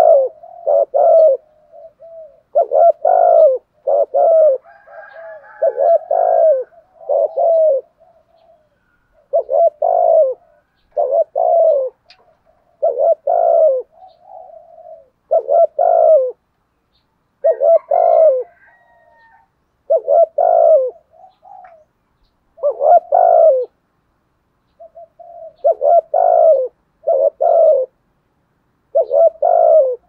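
Spotted dove cooing in the voice keepers call 'giọng thổ': phrases of two or three low coos repeated every two or three seconds, with short pauses and a few soft murmured notes between. Faint chirps from small birds come twice.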